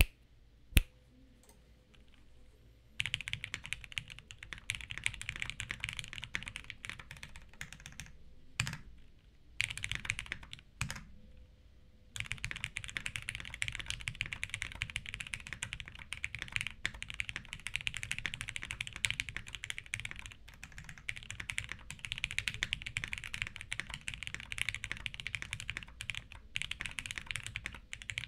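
Typing on an idb60 mechanical keyboard with vintage pre-retool Cherry MX Black linear switches, built plateless with O-rings and original doubleshot keycaps. A single sharp click comes just under a second in. A fast, continuous clatter of keystrokes starts about three seconds in, with brief pauses near nine and twelve seconds.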